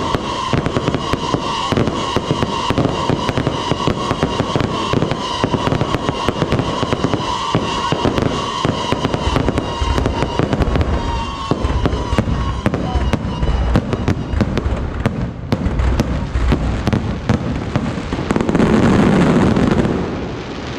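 Aerial fireworks display: a rapid, irregular string of sharp bangs from bursting shells and firecrackers throughout. A steady high tone sits under the bangs for the first half. About 18 s in comes a loud rushing crackle as big gold shells burst together.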